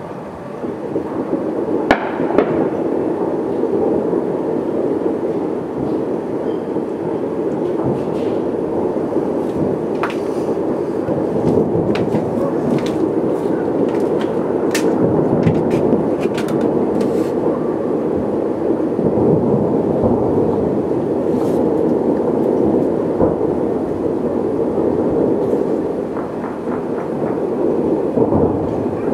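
Distant fireworks display: a continuous rolling rumble of shell bursts, with many sharper cracks and bangs scattered through it, thickest in the middle.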